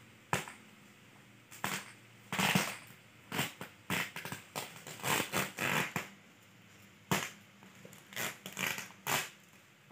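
Clear plastic packaging bags crinkling and crackling in irregular bursts as plastic-wrapped bedcovers are handled and shifted about.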